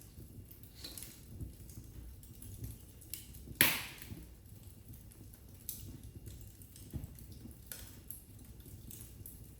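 Wood fire crackling in a fireplace: scattered small snaps and ticks over a low steady rumble of flames, with one loud pop about a third of the way in.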